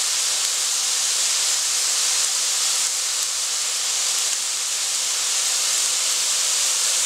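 Tofu, shiitake mushrooms and cashews sizzling steadily in a hot pan, with soaked wild rice laid on top and sweet soy sauce being drizzled over.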